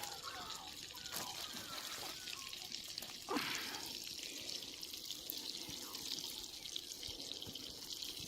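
Onions frying in butter over a campfire: a faint steady sizzling hiss with scattered small crackles, and one louder knock about three seconds in, as wood is put on the fire.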